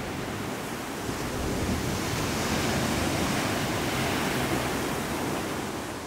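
Rushing noise of sea surf and wind, swelling after about a second and easing slightly near the end.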